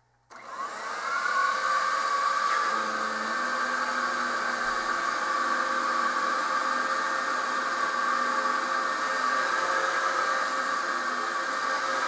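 Dyson DC07 upright vacuum cleaner switched on, its motor spinning up with a rising whine for about a second, then running steadily with the brush bar on carpet as it is pushed back and forth. It is in good working order.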